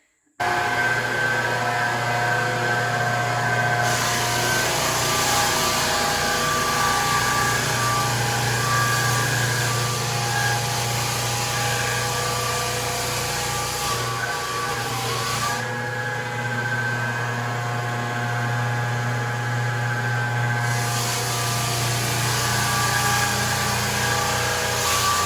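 Rented floor sander running steadily on hardwood floor with coarse 36-grit paper: a motor hum under a hissing sanding noise that starts abruptly. Past the middle, the hiss weakens for about five seconds, then returns.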